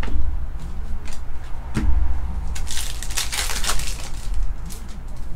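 Plastic trading-card pack wrapper crinkling as it is torn open by hand, loudest from about two and a half to four seconds in, with a few short clicks from cards being handled before it.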